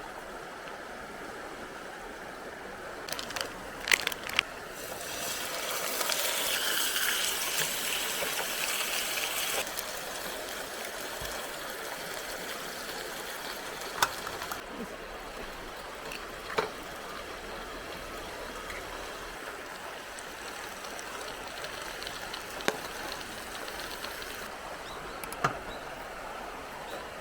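A stream running steadily, with a few sharp clicks or knocks of handling scattered through and a louder rush of noise for about four seconds early on.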